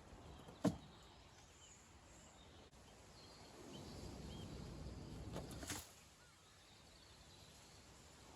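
Quiet outdoor work sounds: a single sharp knock about a second in, then a few seconds of rustling scraping near the middle that ends in a click. Faint bird chirps sound in the background.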